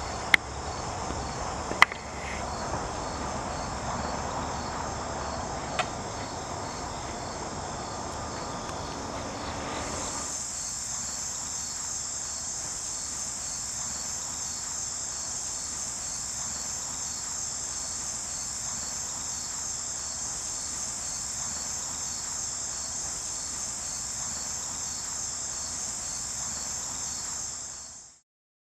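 Outdoor chorus of insects, a steady high-pitched pulsing trill. A sharp click about two seconds in and a couple of fainter ones come over it early. About ten seconds in the chorus grows clearer as the lower background noise drops away, and it fades out near the end.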